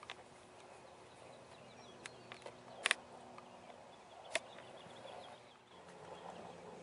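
Quiet outdoor ambience with faint bird chirping, broken by two sharp clicks about three seconds and four and a half seconds in.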